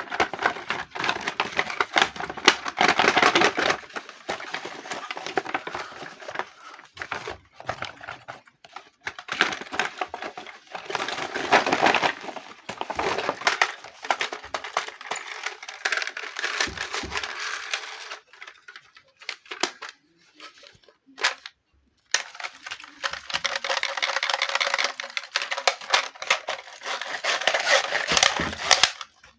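Toy packaging being opened and handled: crinkling and tearing of plastic and cardboard in long bursts, with brief pauses, the longest about two-thirds of the way through.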